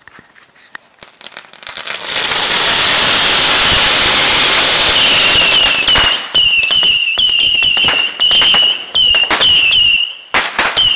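A ground firework going off at close range: a few scattered pops, then from about two seconds in several seconds of dense, loud crackling. After about six seconds it breaks into separate bursts, each followed by a short falling whistle.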